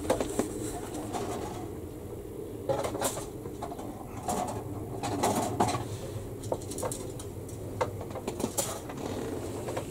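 Hard plastic model-kit sprues being handled and knocking on a workbench: scattered light clicks and clatters, a few at a time, over a steady low hum.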